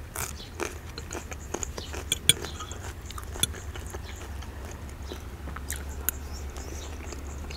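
Close-miked chewing and mouth sounds of a person eating soft stuffed grape leaves (dolma) and bread: irregular soft smacks and clicks, over a steady low hum.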